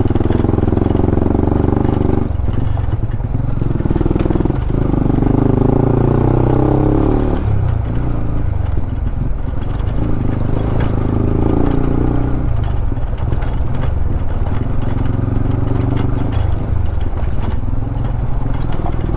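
Honda CB150X motorcycle's single-cylinder engine running under way, its pitch rising and falling several times with throttle and gear changes.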